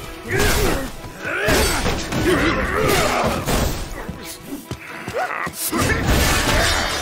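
Action-scene soundtrack: music with crashing, smashing impacts and scuffling.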